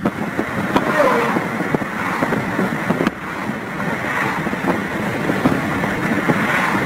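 Wind rushing and buffeting over the microphone at an open car window at highway speed, mixed with the car's road noise.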